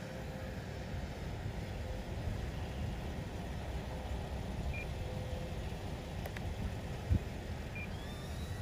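Electric RC airplane's brushless motor and propeller humming faintly at a distance, under a steady low rumble. Near the end a higher motor whine rises and then holds as the throttle comes up.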